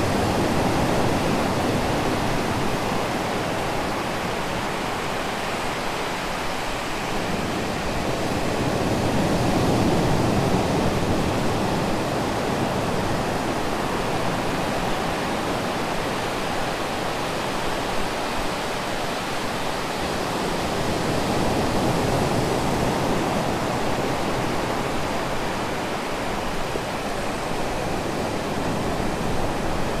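Ocean surf on a sandy beach: waves breaking offshore and a foamy wash spreading up the flat wet sand and draining back, a steady rush that swells and eases slowly, about every ten to twelve seconds.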